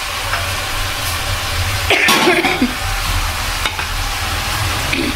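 Spiced mixed vegetables sizzling in oil in an aluminium pot while being stirred with a slotted metal spatula, the spatula scraping the pot now and then over a steady frying hiss.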